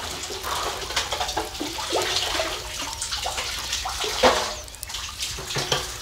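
Water splashing and dripping back into a shallow well as a submersible drainage pump is hauled up out of it on its cord, with uneven splashes and drips and one louder splash about four seconds in.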